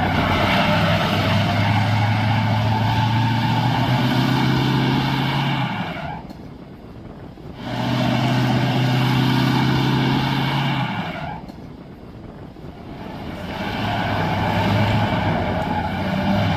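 A tow vehicle's engine revved hard and held high three times, for about six seconds, then three and three, dropping back between each. This is typical of a vehicle without four-wheel drive struggling for traction on a slippery boat ramp.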